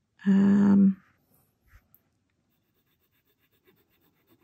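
A woman's brief held 'mmm' near the start, then the faint, light scratching of a fine steel-nibbed Jinhao 82 fountain pen writing on paper.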